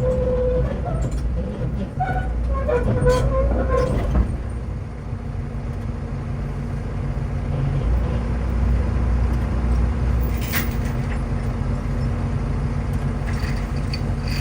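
Engine of the machine used for the lift, running steadily, with a few short high tones in the first four seconds and a single sharp knock about ten and a half seconds in.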